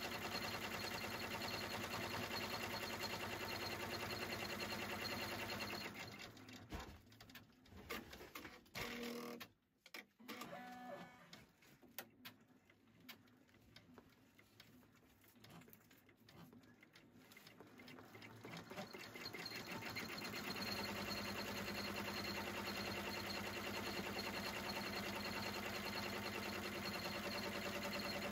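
Embroidery machine stitching steadily, winding down about six seconds in. During the pause come a few clicks and short tones, and the machine starts stitching again at about twenty seconds.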